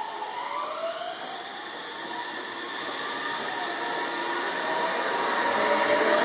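Meitetsu 2200-series electric train running past the platform: wheel-on-rail rumble with the whine of its traction motors rising in pitch, growing louder toward the end.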